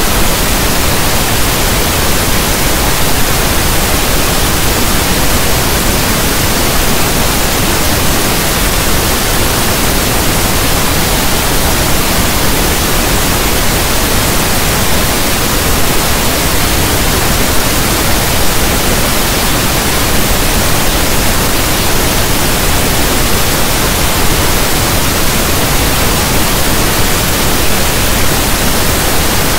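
Steady, unchanging pink noise, a static hiss like a radio not tuned to a station.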